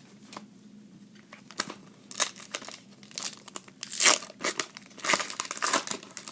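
Trading card pack wrapper being torn open and crinkled, with cards being handled: a run of sharp crackling rustles, loudest about four seconds in.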